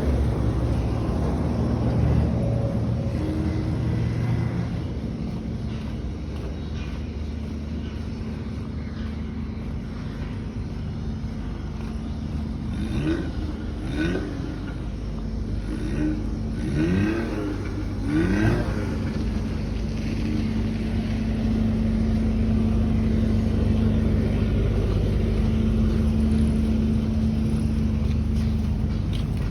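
Motor vehicle engine running with a steady low hum that grows a little louder and steadier in the second half. Several short rising-and-falling tones sound about halfway through.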